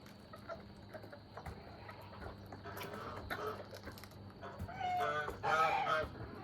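Backyard chickens clucking, with a louder run of calls about five to six seconds in.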